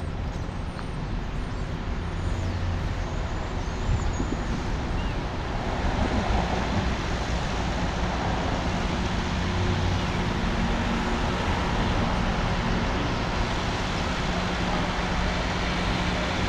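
Steady road traffic noise with a heavy diesel truck engine running, its low hum growing more prominent from about halfway through.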